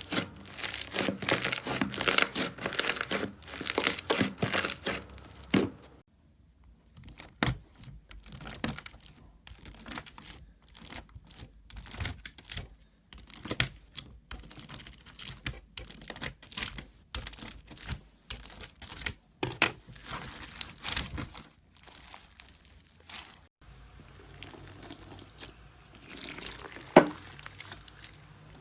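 Slime being squeezed and pressed by hand, crackling and popping. The crackles come thick and fast for the first few seconds, then thin out to scattered clicks and pops, with one sharper pop near the end.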